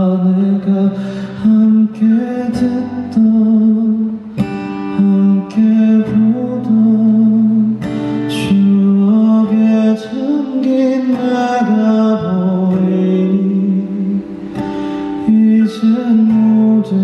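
Live acoustic song: acoustic guitar and light percussion under a male voice singing long held notes.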